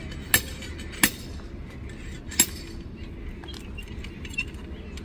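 Sharp metallic clinks, three of them in the first two and a half seconds, then only faint small ticks.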